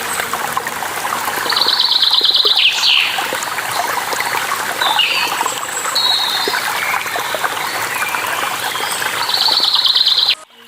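Steady rush of a waterfall with several birds chirping over it; a rapid trilling call comes twice, about two seconds in and again near the end. The whole sound cuts out abruptly just before the end.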